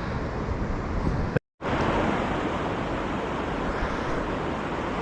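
Steady rush of river water flowing, with a brief total dropout about a second and a half in where the recording cuts.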